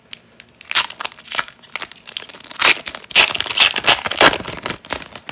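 A foil hockey card pack wrapper being torn open and peeled back by hand. It crinkles and tears in irregular bursts, loudest in the middle stretch and dying away just before the end.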